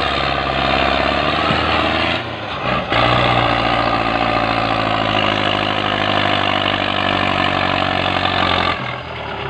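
Diesel farm tractor engine running hard under heavy load while hauling a loaded sugarcane trailer. The engine note dips briefly a little after two seconds, picks up again, then falls away near the end.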